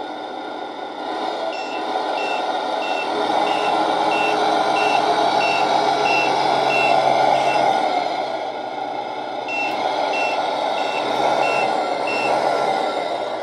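Tamiya MAN TGX model truck's onboard sound unit playing a simulated truck engine running, with reversing beeps at about one and a half a second: one run from about a second and a half in to nearly eight seconds, and a second run from about nine and a half to twelve seconds.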